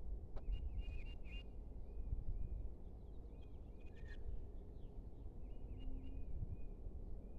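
Small birds chirping, with short, high, arching notes repeated many times, over a steady low wind rumble.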